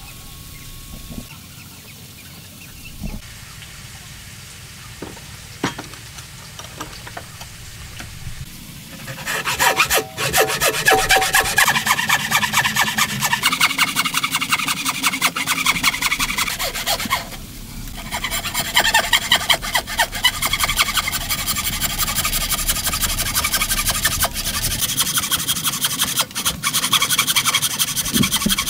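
Wooden frame saw cutting through a wooden board by hand: a fast, steady rasp of back-and-forth strokes that starts about a third of the way in and stops briefly near the middle before resuming. Before it, a few light knocks of wood pieces being handled on the bench.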